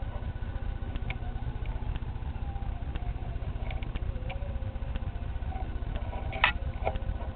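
Camera handling noise as a cat paws at the camera cord: a steady low rumble with scattered light taps, and one sharp click about six and a half seconds in, followed by a softer one.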